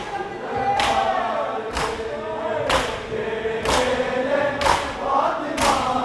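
Large crowd of men chanting a noha (Shia lament) together, with hand-slaps on bare chests (matam) landing in unison about once a second.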